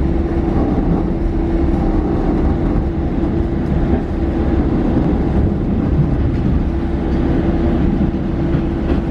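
Diesel railcar running steadily on the non-electrified line: a continuous low rumble with an even hum over it, with no rise or fall of a passing train.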